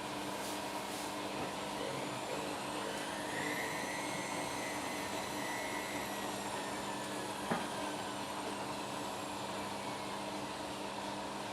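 Washing machine on a spin cycle: a steady motor hum with a high whine that rises about three seconds in, then slowly falls, and a single knock about seven and a half seconds in.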